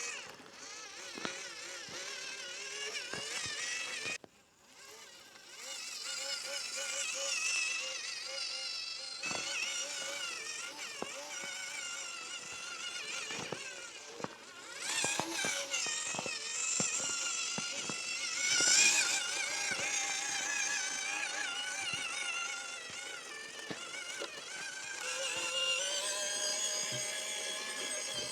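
Background music with a small RC crawler's electric motor and gears whining underneath, and scattered clicks and knocks.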